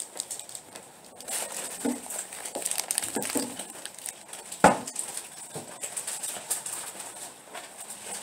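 Groceries being unloaded: bags rustling and items clunking as they are handled and set down, with one sharp knock a little over halfway through.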